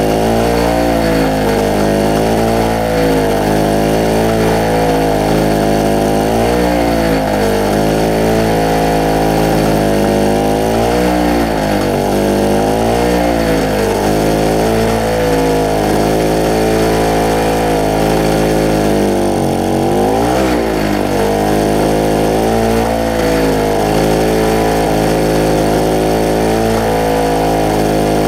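SIP Medusa T951 two-stroke portable generator engine running under the load of a plugged-in floodlight. Its speed keeps wavering up and down unevenly, dips sharply about twenty seconds in, and then recovers.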